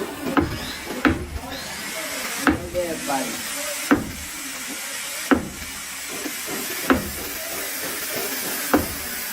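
Hammer striking car body sheet metal in slow panel-beating blows, about seven strikes roughly a second and a half apart, each with a short metallic ring, over a steady hiss.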